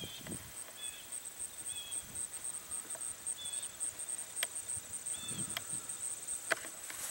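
Quiet outdoor pond ambience: a bird giving short, high chirps about once a second. Under it runs a faint steady high-pitched pulsing, with a few sharp clicks and low rumbles of wind near the end.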